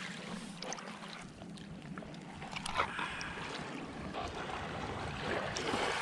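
Small waves washing on a pebble shore, swelling and ebbing, with a few light clicks and knocks from a squid being handled and cut on a cutting board with a knife.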